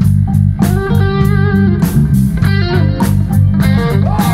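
Live blues-rock band playing an instrumental passage: an electric guitar lead with bent notes over bass and drums.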